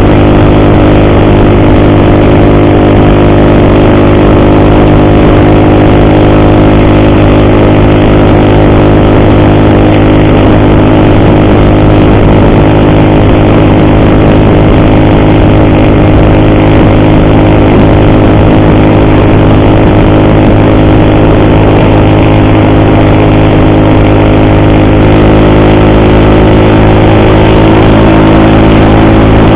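Motorcycle engine running steadily at cruising speed, loud and close, with the pitch shifting slightly near the end as the speed changes. The rider reports an ugly noise from the cam chain on this bike.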